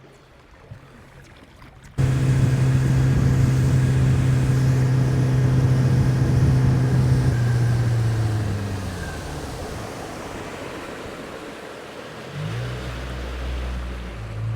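A boat's outboard motor running steadily, which cuts in abruptly about two seconds in. About eight seconds in its pitch drops as it throttles back, and a lower rumble follows near the end.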